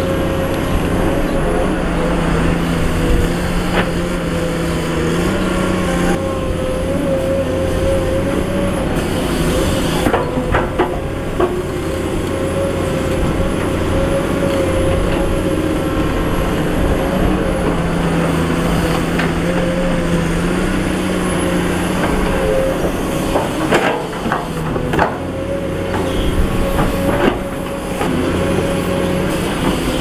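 Komatsu PC210 hydraulic excavator working: its diesel engine runs steadily with a high, slightly wavering whine, and a lower tone comes and goes as the load changes. Scattered knocks of rock and bucket come in a cluster about ten seconds in and several more in the last third.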